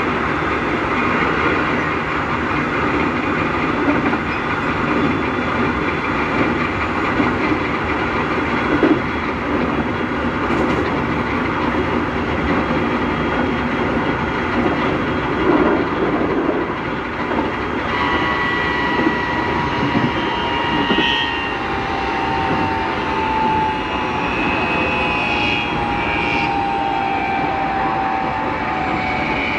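Running noise inside a Keikyu 1000-series EMU car fitted with a Mitsubishi IGBT VVVF inverter, a set known for abnormally loud traction-motor noise, with a steady rumble of wheels on rail. From about 18 seconds in, a two-tone inverter–motor whine comes in and slowly falls in pitch as the train slows.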